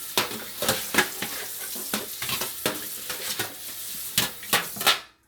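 Kitchen handling noises: a run of irregular clicks and knocks over a steady hiss, as seasoned steaks are moved and set aside. The sound cuts off abruptly near the end.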